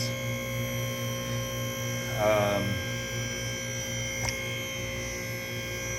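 Steady electrical hum made of several constant tones, with a brief voice about two seconds in and a faint click a little after four seconds.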